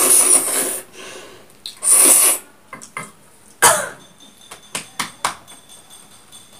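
A person noisily slurping spicy ramen noodles: a long slurp in the first second and another about two seconds in, then a short sharp burst and a few light clicks.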